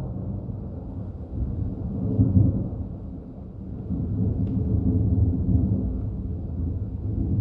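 Thunder rumbling low and rolling, swelling about two seconds in, easing off, then building again from about four seconds on.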